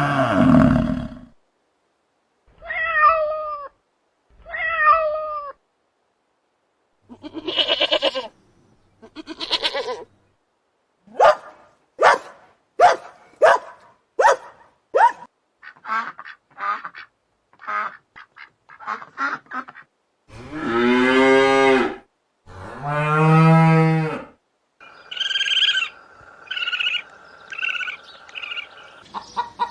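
A run of different farm animal calls one after another with short pauses between them: two short falling calls, then a string of quick sharp calls, then two long low drawn-out calls near the middle, and short repeated higher calls near the end.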